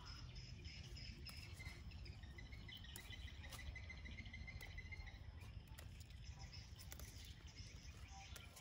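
Faint, steady trilling of insects in the garden, with a faster pulsed trill from about two to five seconds in. Scattered light snaps come from leafy vegetable stems being plucked by hand.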